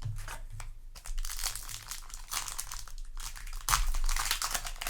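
Foil wrapper of a Yu-Gi-Oh! booster pack crinkling as it is handled, in several rustling bursts, loudest near the end.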